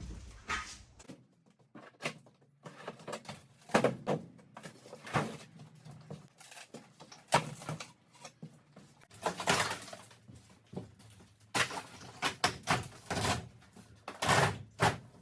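Irregular knocks, bangs and short scraping clatters of hand demolition work inside a small caravan shell, with the longest, loudest scrapes about nine and fourteen seconds in.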